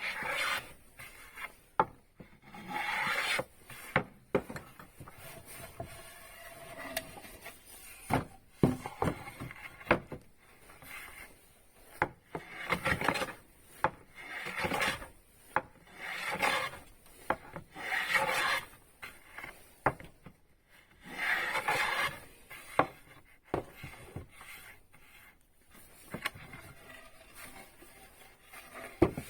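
Wood being worked by hand with an abrasive, in repeated rubbing, rasping strokes roughly one to two seconds apart, with a few sharp knocks of wood between strokes.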